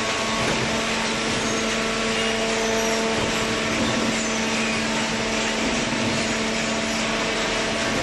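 Horizontal hydraulic paper baler running: a steady machine hum with several constant tones over an even hiss.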